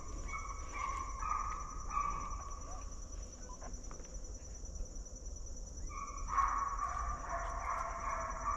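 Hunting hounds baying: short repeated bays for the first couple of seconds, then several dogs giving tongue together from about six seconds in. Under them runs a steady high insect drone.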